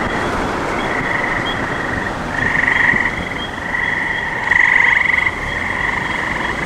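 A chorus of trilling frogs, steady and swelling louder twice, over the low road rumble of a car driving.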